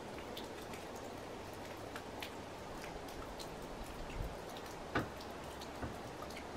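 Quiet outdoor ambience: a steady hiss with scattered, irregular faint ticks and taps, the clearest one about five seconds in.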